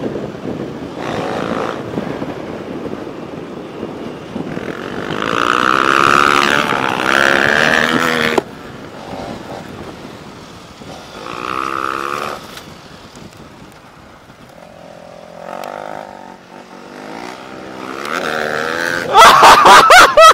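KTM 1290's V-twin motorcycle engine under way on a gravel road, its pitch rising as the throttle is opened in several pulls and cutting off sharply about eight seconds in, with wind rushing past. Near the end a very loud, distorted rush of wind buffets the microphone.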